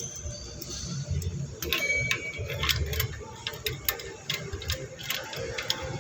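Irregular metallic clicks and taps of hand tools, typical of a ratchet wrench working the spark plugs out and in, over a low background rumble.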